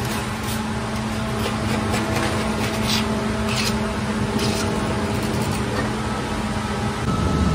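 A dough machine runs with a steady hum while a hand scraper is drawn against the inside of its stainless-steel hopper, giving several short scrapes in the first four or five seconds. The hum's low tone stops near the end.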